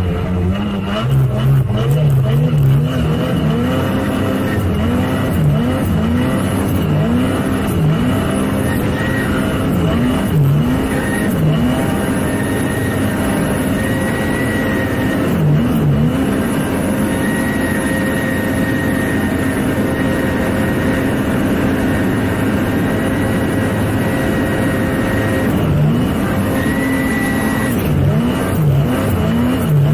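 Mountain snowmobile engine revving up and down over and over while riding in snow, its pitch rising and falling every second or two.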